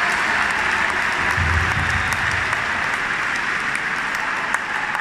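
Large concert-hall audience applauding, the applause slowly fading. A brief low rumble comes about a second and a half in.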